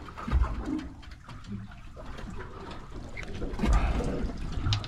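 Water lapping and slapping against the hull of a drifting boat, with a few dull low thumps about a third of a second in and again near the end.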